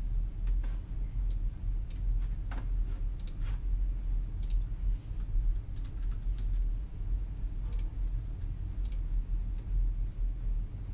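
Sparse, irregular computer keyboard keystrokes and mouse clicks over a steady low room hum.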